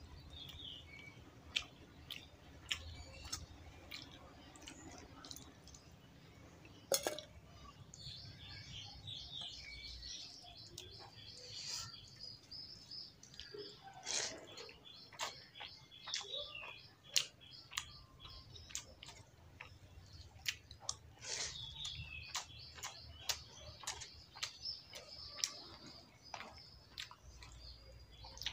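A person eating rice with dal and fried potato by hand: chewing and smacking mouth sounds with many short sharp clicks. Birds chirp in the background, most in two stretches, a third of the way in and again near the end.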